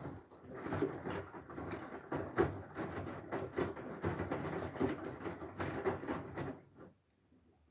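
Whirlpool FSCR90425 washing machine in its rinse cycle: the drum turns, with water and laundry sloshing in an uneven churning rhythm, then stops about seven seconds in.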